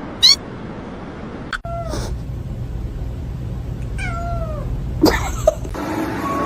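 Domestic cat meowing: a short high chirp at the start, then two drawn-out meows that fall in pitch, about two and four seconds in. A few sharp clicks come about five seconds in.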